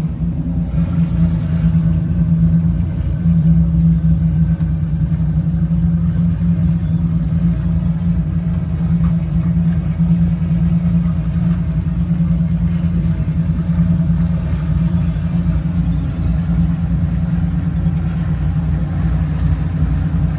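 The engines of a 1988 Ocean Yachts 48 Super Sport running steadily, a deep, even drone.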